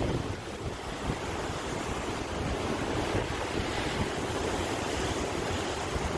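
Sea surf: a continuous rush of waves breaking and washing in, surging just as it begins and then holding steady.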